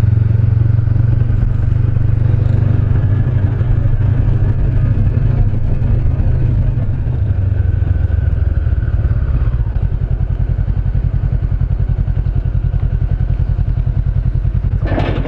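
Honda CB500X motorcycle's parallel-twin engine running while riding. About two-thirds of the way through it drops to a slower, even pulsing as the bike slows right down.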